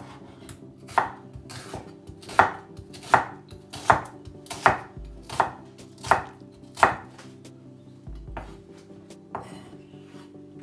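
Kitchen knife chopping vegetables (tomato and onion) on a wooden cutting board: about eight sharp knocks, roughly one every three-quarters of a second, then a few softer cuts near the end.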